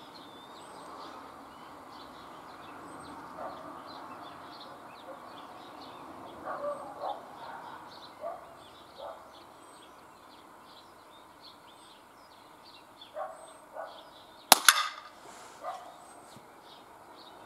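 A single shot from an NTK Buster .22 pneumatic air pistol: one sharp crack near the end.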